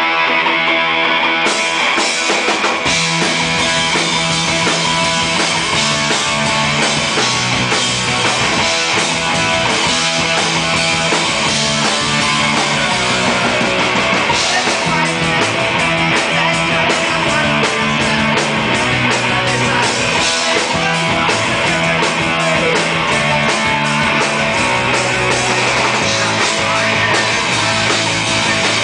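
Live punk rock band playing: electric guitar over bass and drums. The cymbals come in about a second and a half in, and the bass line follows a second or so later.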